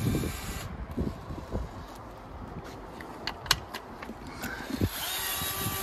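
Scattered light clicks and knocks of screws and plastic seat parts being handled, then a DeWalt cordless screwdriver running steadily near the end as it backs out the seat bolts of an electric unicycle.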